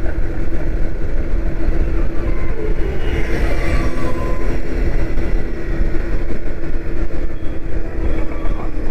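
Yamaha motorcycle riding at a steady cruise: the engine runs at an even pitch under heavy wind rumble on the microphone.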